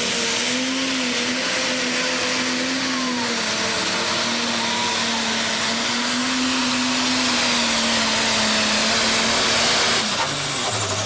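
Ford Light Pro pulling tractor's turbocharged diesel engine at full throttle hauling the weight sled, a high turbo whistle over the engine note, getting louder as the pull goes on. About ten seconds in the throttle is cut: the engine note drops and the turbo whistle falls away.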